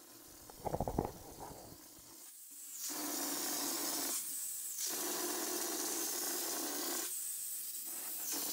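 Harbor Freight hopper texture sprayer driven by compressed air, spraying concrete: a steady hiss of air and spray in three bursts with short pauses between, starting about two seconds in. A brief low rattle comes about a second in.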